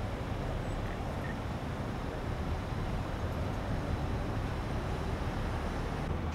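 Idling vehicle engines: a steady low rumble with street noise over it.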